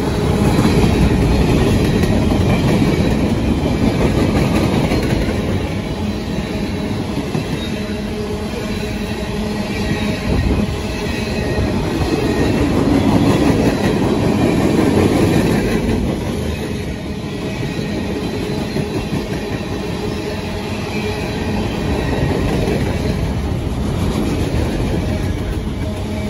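Freight train of covered hoppers, tank cars and autoracks rolling past close by: steady rumble and clatter of steel wheels on the rails, swelling louder a couple of seconds in and again about halfway through.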